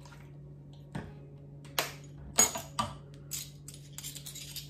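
Small clicks and clinks of a vanilla bottle and a metal measuring spoon being handled and set down on a stone countertop, a handful of sharp knocks with the loudest about two and a half seconds in, over a steady low hum.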